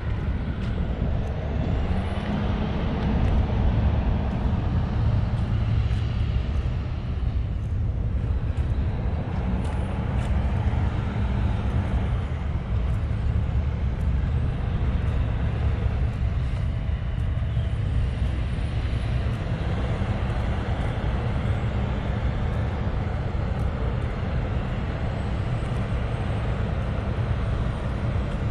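Steady outdoor road traffic: a continuous low rumble with a hiss over it, and no single vehicle standing out.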